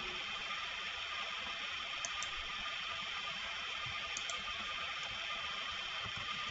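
Steady microphone hiss with a faint steady tone, and two pairs of light computer-mouse clicks, about two and four seconds in.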